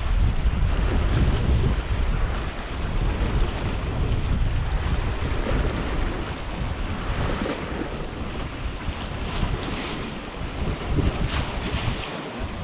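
Wind buffeting the microphone in gusts, over the wash of sea waves.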